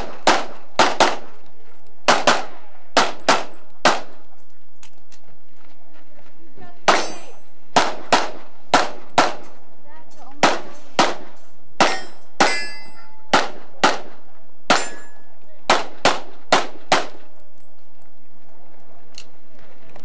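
A run of about two dozen handgun shots, mostly in quick pairs. After the first nine there is a pause of about three seconds, and a few of the later shots are followed by the ring of a struck steel target.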